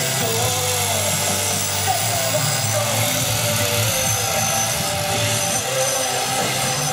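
Corded electric angle grinder running steadily against a carved wooden post, sanding and shaping the wood. Its pitch wavers slightly as it is worked over the surface.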